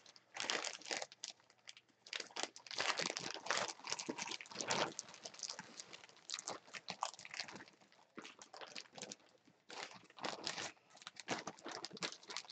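Clear plastic bag crinkling and rustling in irregular bursts as it is handled.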